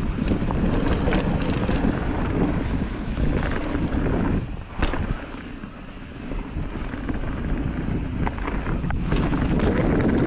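Wind rushing over the microphone of a camera riding on a descending mountain bike, with tyre and trail rumble underneath. About four seconds in the noise drops away for a couple of seconds, with one sharp click, then builds back up.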